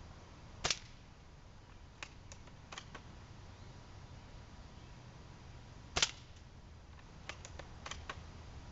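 Two shots from a UTG MK96 spring-powered bolt-action airsoft sniper rifle, about five seconds apart, each a single sharp crack. About a second and a half after each shot comes a quick run of three or four faint clicks as the bolt is cycled for the next shot.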